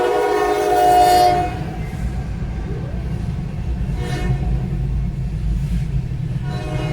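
Emergency Alert System two-tone attention signal received over AM radio, a steady horn-like chord that cuts off about a second and a half in. A low rumbling noise follows, and the tone comes back faintly about four seconds in and again near the end.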